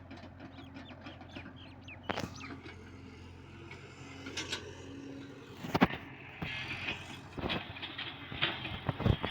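Hitachi Zaxis 670LC excavator's diesel engine running steadily, with several sharp knocks over it; the loudest comes about six seconds in.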